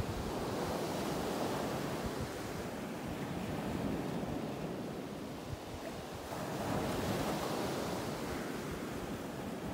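Gulf of Mexico surf washing on the shore, a steady rush that swells and eases in slow waves, with wind buffeting the microphone.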